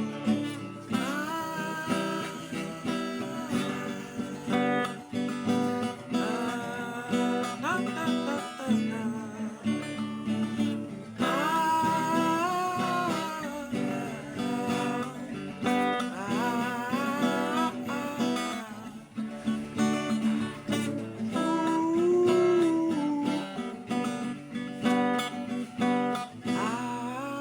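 Acoustic guitar strumming a worship accompaniment, with a voice singing a wordless melody over it.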